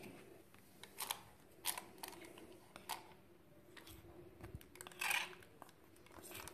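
Faint crinkling and rustling of a plastic piping bag as runny chocolate spread is spooned and poured into it, with a few short scrapes against the bowl, the longest about five seconds in.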